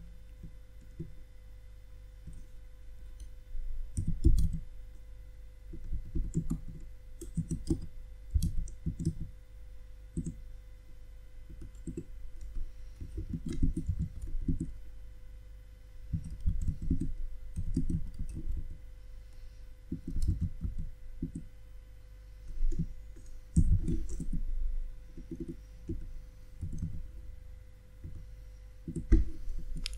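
Computer keyboard keys clicking in irregular bursts of typing, with short pauses between bursts.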